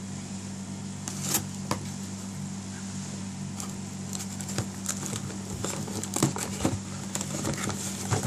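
Product packaging being handled: scattered crinkles and small clicks, busiest in the second half, over a steady low hum.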